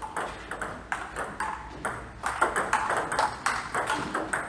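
Table tennis balls clicking off bats and tables in rallies at several tables, irregular pings that come several a second and grow thicker from a little before halfway.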